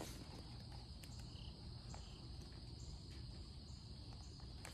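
Crickets chirping faintly: a high trill pulsing about every two-thirds of a second over a steady background hiss.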